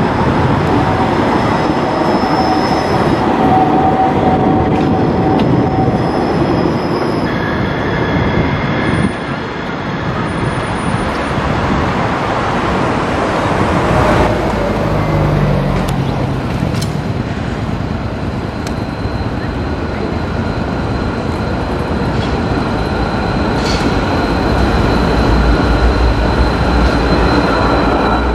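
Munich Siemens Avenio tram rolling through a track curve on grooved rails, with thin held squealing tones from the wheels over the running noise. In the second half another tram comes up and passes close by, its deep rumble growing louder near the end.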